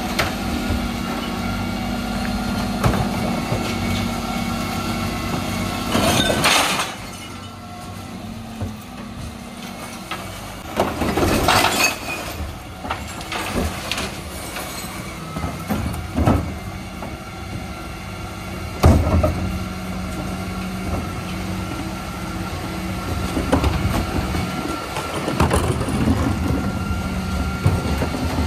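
Dennis Elite 6 refuse truck running at the kerb while its split bin lifters tip wheelie bins of recycling into the hopper: a steady engine hum with several loud clattering crashes of bins and tipped cans and bottles.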